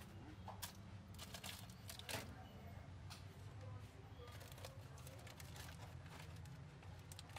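Faint food-stall ambience: a steady low hum with scattered clicks and knocks, the loudest about two seconds in.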